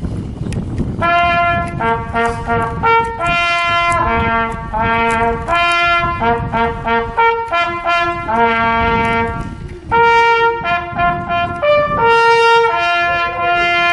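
Small coiled brass hunting horn blown in a fanfare of short and held notes, beginning about a second in, pausing briefly just before ten seconds and then carrying on. It is the hunters' horn salute sounded over the laid-out bag of game at the end of the hunt.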